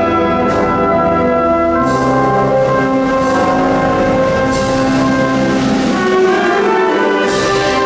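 Symphonic wind band playing a Spanish processional march (marcha procesional): sustained, brass-led chords punctuated by several crashes.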